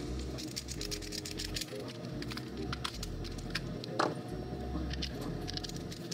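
Light clicks and taps of small plastic parts and screws being handled and fitted by hand, with a sharper click about four seconds in, over quiet background music.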